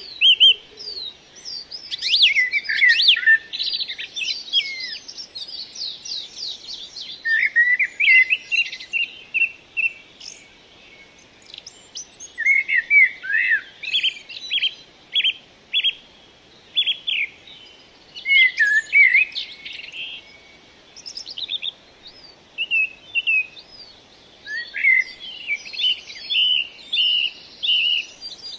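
Small songbirds chirping and singing: quick short chirps and fast trills in clusters, with brief gaps between them.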